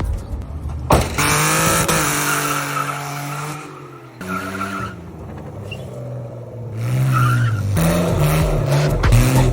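Car engine revving, its pitch rising and falling in several sweeps.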